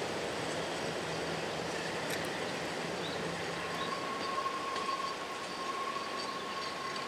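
Narrow-gauge train wagons rolling away along the track, with a steady rumble of wheels on rails. From about halfway in, a thin, steady squeal of wheels joins it as the cars take the curve.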